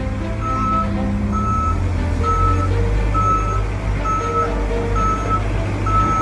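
Backup alarm of a Case backhoe loader beeping at one steady pitch, about one beep a second, over the low steady running of the machine's diesel engine as it reverses.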